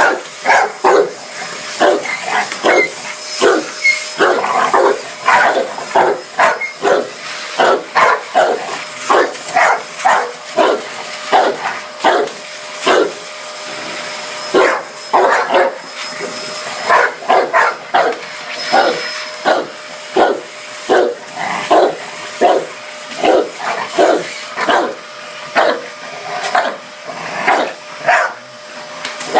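A Dogue de Bordeaux barks over and over, about one to two barks a second with brief pauses, at a running vacuum cleaner whose steady hum continues underneath.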